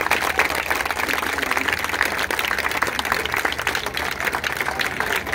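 Crowd applauding: many hands clapping at a steady rate.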